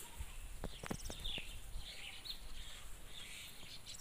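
Birds chirping on and off, short high calls with a brief rapid trill about a second in. A few soft knocks near the start and a low rumble sit underneath.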